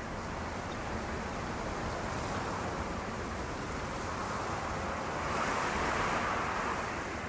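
A steady rushing noise, like surf or wind, that swells a little about five seconds in.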